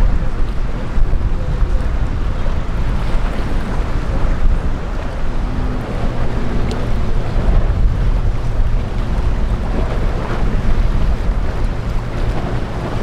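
Wind buffeting the microphone: a steady, heavy low rumble with a rushing hiss above it.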